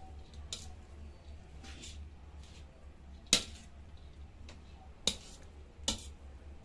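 A slotted stainless-steel spatula scraping and tossing string hoppers in a stainless-steel wok, with a few sharp metal-on-metal clanks; the loudest comes a little past the middle. A steady low hum runs underneath.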